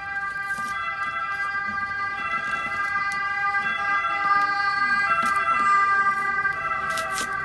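Parcel packaging being torn and pulled open, with short sharp ripping and crinkling noises, loudest near the end. A steady high whine of several held tones runs underneath.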